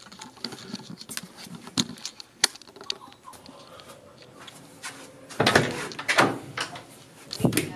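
A hotel bathroom door being opened by its lever handle: small clicks and handling noise, then louder knocks and rattles of the handle and door about five and a half to six seconds in, and another near the end.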